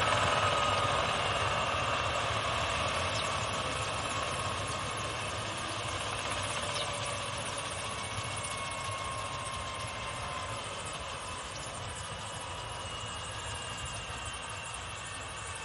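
Eurocopter EC155's twin turboshaft engines and main rotor winding down after shutdown. The turbine whine slowly falls in pitch, and the whole sound fades steadily.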